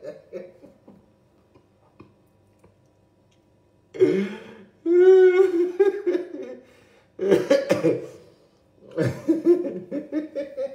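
A man laughing loudly in several bursts after a few seconds of quiet. About five seconds in he holds one drawn-out, wavering vocal note.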